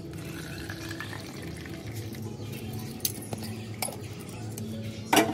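A shaken drink poured from a metal cocktail shaker through its strainer into a plastic cup, a steady splashing pour, with one sharp clink near the end.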